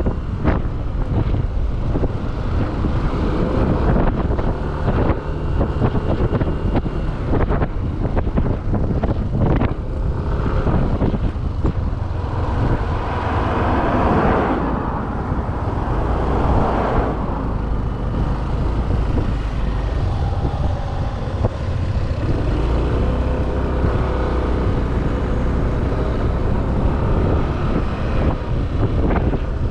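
Wind buffeting the microphone over the engine and road noise of a moving motorbike. A louder rushing hiss swells and fades about halfway through.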